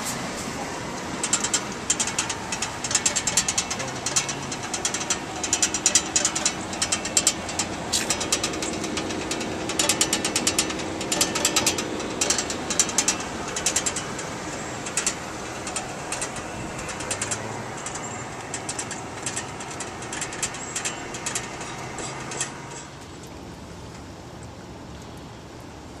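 Steady running noise of air-conditioning equipment under rapid, irregular mechanical clicking and rattling. The clicking stops about 22 seconds in, leaving only the quieter steady running noise.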